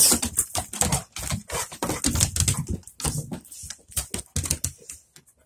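Dogs' claws and feet clicking and knocking irregularly on wooden deck boards as they move about.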